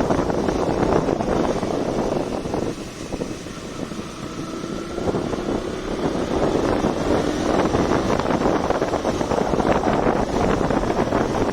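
KTM Duke 200's single-cylinder engine running while the bike is under way, with heavy wind noise on the microphone. It drops in level about three seconds in and builds back up from about five seconds.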